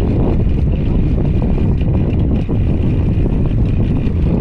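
A small fishing boat's engine running steadily, a dense low rumble, with wind buffeting the microphone.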